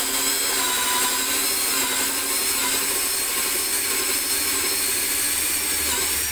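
Cordless drill running at a steady high speed, its bit boring into a wooden cabinet panel; the motor stops abruptly near the end.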